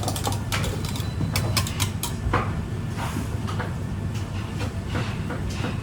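Working restaurant kitchen: a steady low hum with irregular clicks, knocks and clatters of dishes and utensils being handled.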